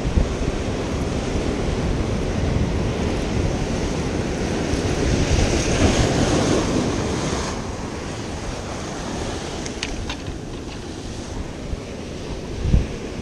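Ocean surf breaking against jetty rocks, with wind buffeting the microphone; the wash swells to its loudest around the middle and then eases. A few faint clicks come about ten seconds in, and a short thump comes near the end.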